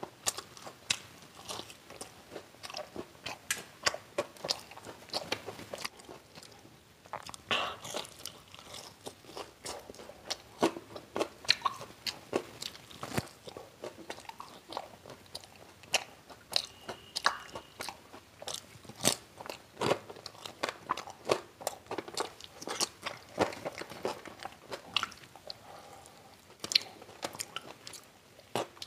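Close-up crunching and chewing of crisp deep-fried snacks, pakoras and chops, bitten and chewed with the mouth near the microphone: irregular sharp crunches, several a second, throughout.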